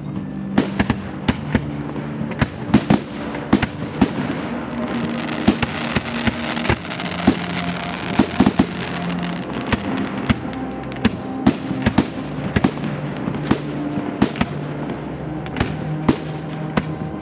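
Fireworks going off: many sharp bangs and cracks at irregular intervals, with a denser stretch of crackling in the middle. Music with held notes plays underneath.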